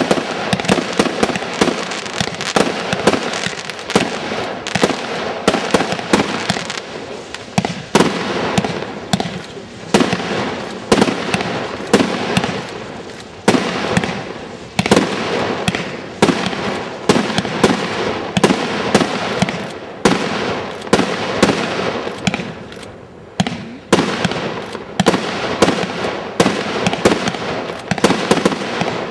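Fireworks display going off in rapid succession: an unbroken run of sharp bangs, several a second, each dying away quickly before the next.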